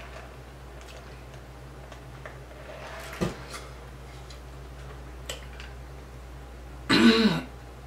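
Close-up eating sounds: faint mouth clicks and smacks while chewing a burger, with a sharper knock about three seconds in. Near the end comes a short, loud vocal sound with a bending pitch, like a hum or gulp.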